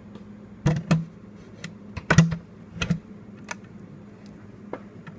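A string of irregular sharp knocks and clicks of hard objects being handled, loudest about two seconds in, over a steady low hum.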